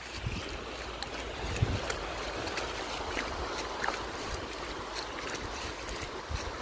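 Wind buffeting the microphone over a steady hiss of sea water, with low rumbling gusts and a few small ticks.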